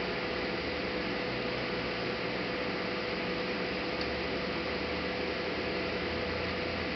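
Steady hiss with a constant hum underneath and no distinct events.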